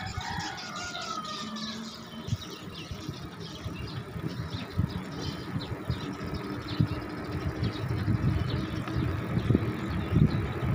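Wind buffeting the microphone of a camera carried on a moving bicycle, an irregular low rumble that grows louder toward the end, over road noise.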